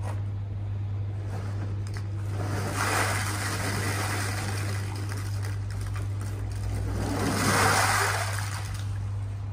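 Blue plastic pond insulation balls pouring out of a cardboard box onto a pond's surface twice, each a rushing clatter of about a second, the second louder than the first. A steady low hum runs underneath.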